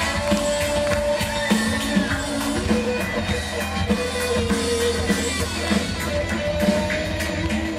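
Live pop-rock band playing through a festival PA in an instrumental stretch with no singing. The drum kit keeps a steady beat of about two strokes a second under bass and electric guitar, with held guitar or keyboard notes.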